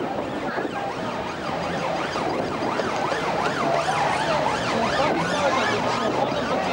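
Red Arrows' BAE Hawk jets heard from the ground: a steady jet roar with many overlapping wavering tones sweeping up and down.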